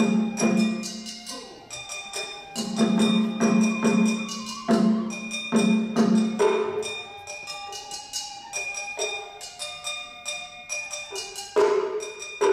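Japanese festival music (matsuri-bayashi) played live: a shinobue bamboo flute plays a melody of held notes over crisp, irregular strikes on shime-daiko drums and deeper beats of the ōdō drum.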